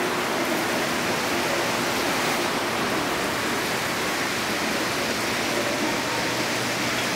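Canadian Vickers MR-63 rubber-tyred metro train rolling through the station, a steady even rushing noise of its rubber tyres and running gear.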